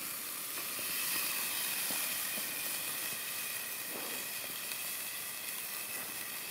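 Raw bone-in beef rib steak sizzling steadily on a hot charcoal grill grate, with a few faint pops.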